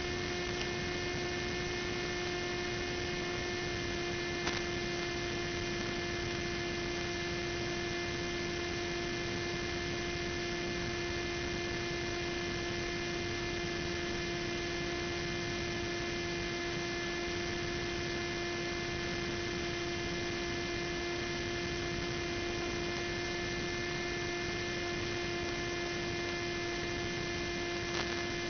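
Steady electrical hum made of a few fixed tones over even hiss, on the audio channel of an FPV video link. It does not change as the plane's throttle goes from about a third to zero. Two faint clicks, one about four and a half seconds in and one near the end.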